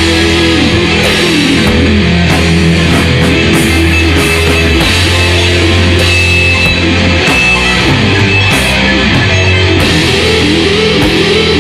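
Heavy metal music: a loud, steady wall of distorted electric guitar riffing with a full band behind it.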